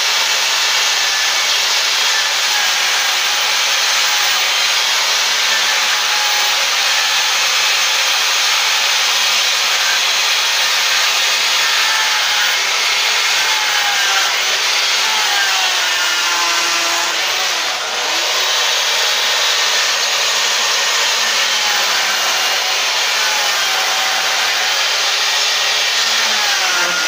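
Corded electric Stihl chainsaw running steadily while its chain cuts into a wooden log, with a brief dip in the motor about two-thirds of the way through.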